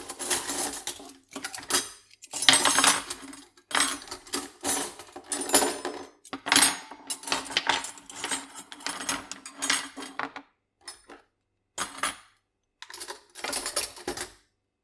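Metal cutlery (forks, spoons, teaspoons and knives) clinking and rattling together as it is handled, in repeated bursts of a second or so, thinning out to a few short clinks over the last few seconds.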